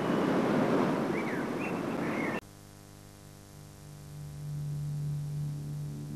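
A dense rushing noise, with a few faint short high squeaks in it, cuts off abruptly about two and a half seconds in. A steady low drone tone with overtones then swells in and holds.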